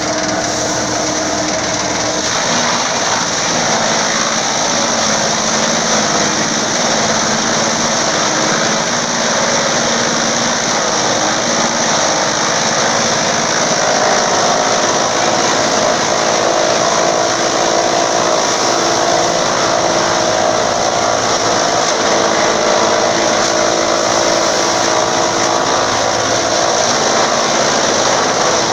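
Forage chopper running steadily under load while bundles of green grass stalks are fed into it and cut.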